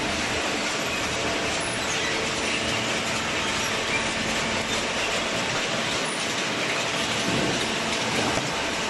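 Hydraulic baling press running: a steady, even mechanical din with faint steady tones through it.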